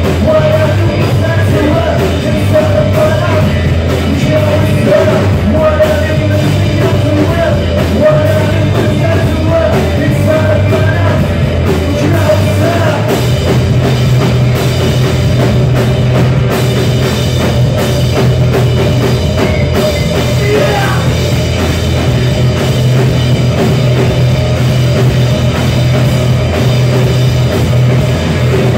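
Live rock band playing loudly: electric guitar, bass guitar and drum kit. The bass settles into a steady low note about halfway through.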